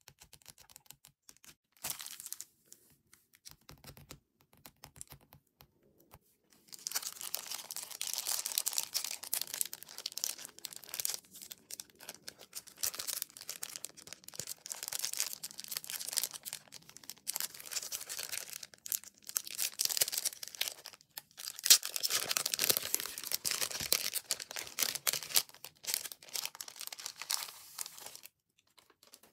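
A clear plastic sleeve crinkling and rustling as a sticker sheet is handled inside it and slid out, in long stretches of dense crackling with short breaks. The first few seconds hold only a few light clicks and rustles of the sheets being handled.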